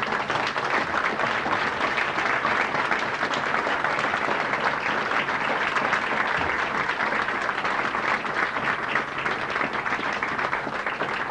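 Audience applauding steadily in a classroom as a lecture ends.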